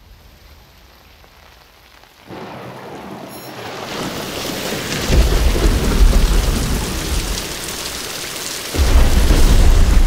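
Rain and thunderstorm: a faint hiss, then rain comes in about two seconds in and builds to a heavy downpour, with deep thunder rumbles about halfway through and again near the end.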